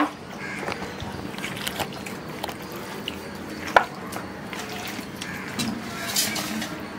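Wet squelching and small clicks of anchovies being mixed by hand into a thick masala paste to marinate, with one sharper tap about halfway.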